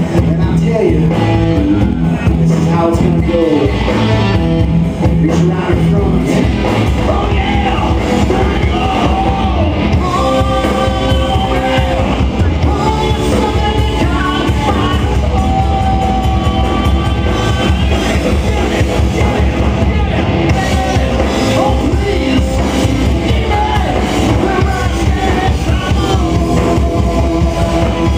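Live rock band playing loud: electric guitar, bass and drums, with a lead singer singing over them.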